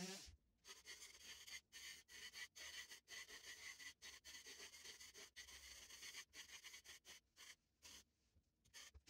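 Faint power sander running on a wooden disc, chopped into short pieces by many abrupt cuts.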